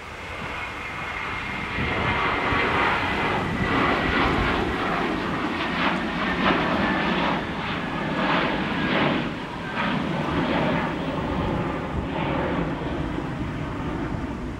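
Airliner jet engines passing close, building over the first two seconds and staying loud, with a thin whine that sinks slightly in pitch.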